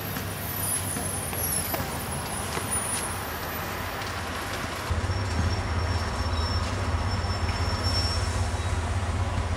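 Steady traffic rumble and street noise, with a deeper engine-like hum that grows louder about five seconds in.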